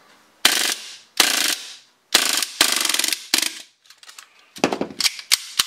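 Tokyo Marui Hi-Capa gas blowback airsoft pistol with a full-auto blowback unit, fired in about five short bursts to empty the last gas from the magazine. Some bursts are a fast rattle of the slide cycling. They are followed by lighter clicks of handling near the end.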